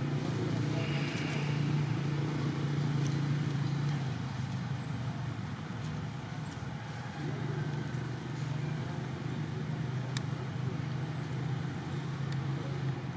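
Steady low hum of a motor vehicle engine running, fading for a few seconds midway and then coming back.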